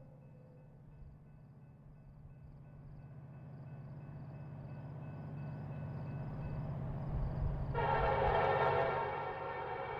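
A low steady hum swells slowly under a faint warbling high tone. About eight seconds in, a loud sustained horn-like chord of many tones comes in suddenly and holds.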